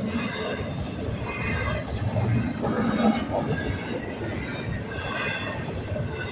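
Double-stack intermodal container cars of a freight train rolling past at speed: a continuous rumble of steel wheels on rail, with short high-pitched tones recurring over it every second or so.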